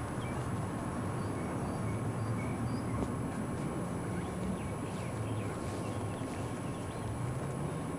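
Steady outdoor background noise: a low rumble with a few faint, short high chirps scattered through it.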